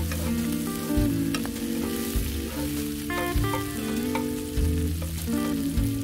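Strips of pork belly sizzling and frying in a pan on a portable gas stove as they are turned, over background music with a steady beat a little more often than once a second.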